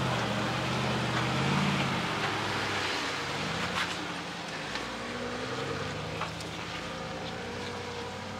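Jeep engines running at crawling speed over rock, their note rising and falling gently with the throttle, with tyre and rock noise and a few light clicks.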